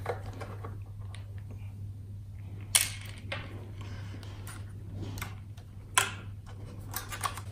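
Small clicks and taps of fingers and parts on the plastic and metal inside an opened all-in-one computer as its Wi-Fi card is taken out, with two sharper clicks about three and six seconds in, over a steady low hum.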